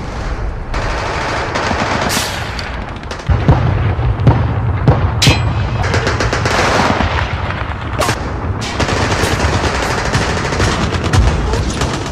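Battle sound effects: continuous rapid machine-gun fire and gunshots, with a heavy low rumble of booms from about three and a half seconds in.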